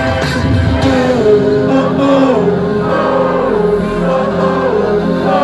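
Live rap-concert music: a sung melodic refrain over the song's beat, recorded loud from within the crowd.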